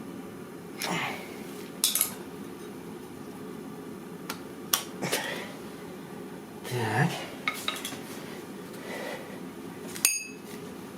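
Scattered metallic clinks and scrapes of screwdrivers against the gears and clutch basket of a Honda CBR600F4i, as the basket is worked onto the shaft and its teeth are brought into mesh. The last clink, near the end, rings briefly. A steady low hum runs underneath.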